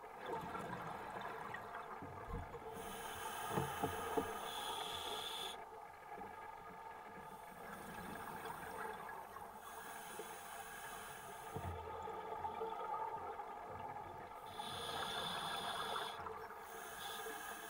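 Underwater ambience: a steady mechanical hum of several tones, with stretches of high hiss about three seconds in and again near the end, and a few low thumps.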